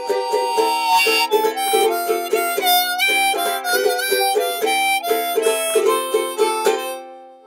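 Upbeat instrumental music with a quick, rhythmic chord pulse and a melody over it, fading out near the end.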